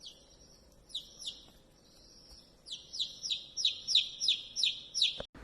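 Dog's squeaky toy being squeezed over and over: short high squeaks, each sliding down in pitch, a few scattered at first and then a quick run of about three a second.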